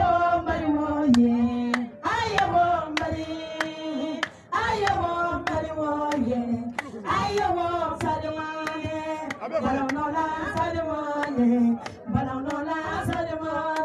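A woman singing a praise song into a microphone in long held notes that slide and bend, with sharp claps scattered through.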